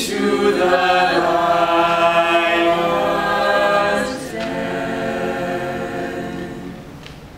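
Mixed men's and women's a cappella group singing held chords in close harmony: one long chord, a brief break about four seconds in, then a second chord that fades away near the end.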